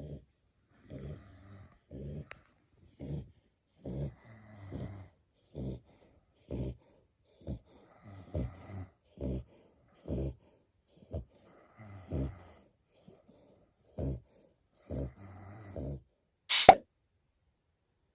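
French bulldog puppy snoring in its sleep: rhythmic snorting breaths, about one a second, each with a faint high whistle. Near the end comes one much louder, sudden burst.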